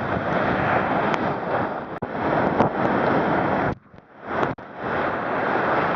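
Ocean surf and wind buffeting the microphone, an even rushing noise that cuts out briefly about four seconds in.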